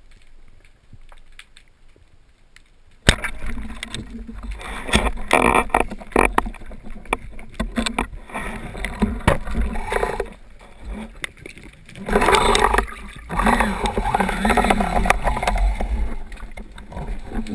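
Muffled underwater noise heard through an action camera's housing on a spearfishing dive: water rushing and many sharp clicks and knocks. It starts suddenly about three seconds in, after a quieter start.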